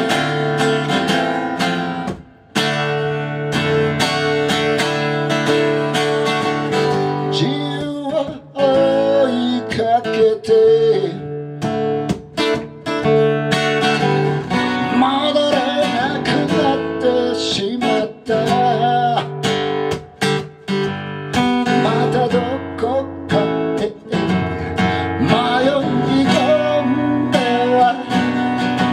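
Strummed acoustic guitar with a man singing along. The guitar plays alone at first, with a brief break a couple of seconds in, and the voice comes in about eight seconds in and carries on over the strumming.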